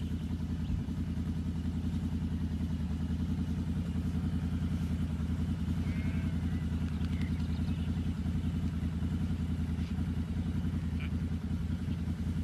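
Quad bike engine idling steadily with an even low throb.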